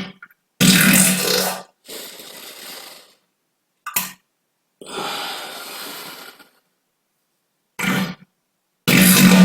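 A series of about six separate farts with dead silence between them. Some are short, loud and low-buzzing, and others are longer, softer and airy-hissing, the loudest near the start and at the end. They are air drawn in through the anus and pushed out on purpose.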